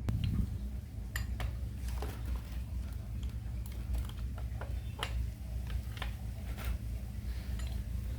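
Car air-conditioning compressor running with a low, steady drone, the rough 'snoring' noise of a rough-running compressor. Irregular light metallic clicks and clinks sound over it.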